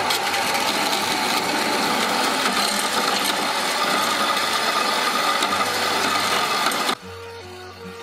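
Small vertical bandsaw running and cutting a slot into a steel tong blank, a steady mechanical sound of blade on steel. It cuts off suddenly about seven seconds in, and soft music follows.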